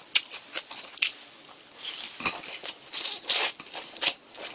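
Close-miked chewing of a seaweed rice ball topped with shredded cabbage salad, with irregular crisp crunches as the raw cabbage is bitten and chewed.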